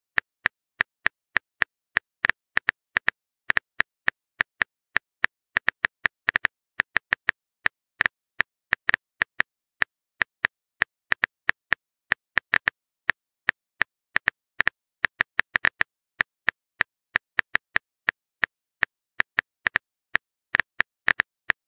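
Simulated phone-keyboard typing sound: sharp key-tap clicks coming irregularly a few times a second, with dead silence between them, as a text message is typed.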